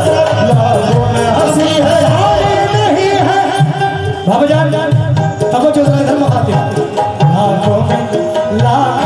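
Qawwali music: harmonium melody over tabla and dholak drumming, with singing.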